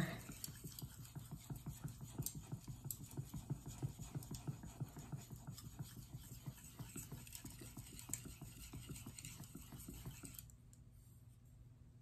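Santoku blade stroked on a Shapton Pro 5000-grit whetstone: a quick run of short scratching strokes as the edge is worked to raise and flip a burr. The strokes stop about ten and a half seconds in.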